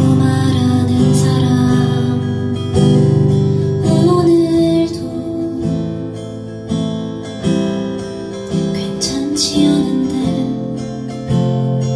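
A live solo acoustic song: an acoustic guitar strummed in steady chords while a woman sings.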